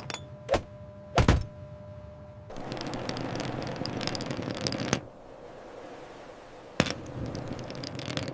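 Sharp knocks, two of them in the first second and a half, then a clattering stretch of about two and a half seconds, and one more sharp knock near the end.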